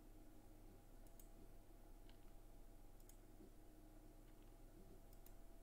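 Faint clicks of a computer mouse and keyboard, a few scattered clicks, some in quick pairs, over near-silent room tone with a low steady hum.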